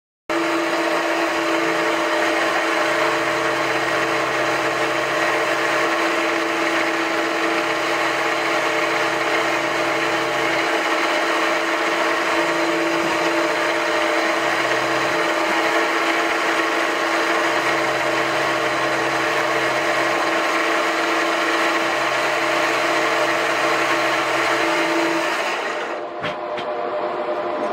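Milling machine spindle running with an end mill cutting a part, a steady machine sound with a strong held tone over the hiss of cutting. About two seconds before the end it gives way to a quieter, higher hum with a few clicks from a laser cutter.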